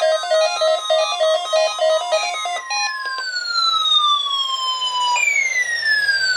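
Electronic siren-like tone sweeping slowly downward in pitch, then jumping back up and falling again, about every two and a half seconds. For the first three seconds it overlaps a looping electronic melody and a steady beep-like tone, which both cut off suddenly.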